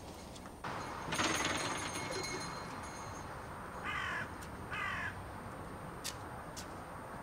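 A short burst of rustling noise about a second in, then a crow-like bird cawing twice, about a second apart, over outdoor background noise.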